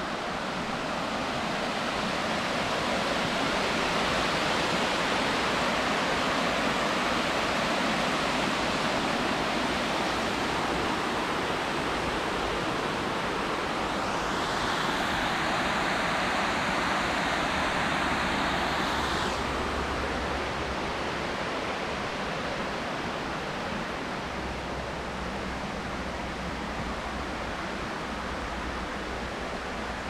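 Rushing water of a river or waterfall: a steady, even hiss. It grows brighter and sharper for a few seconds around the middle, then eases slightly.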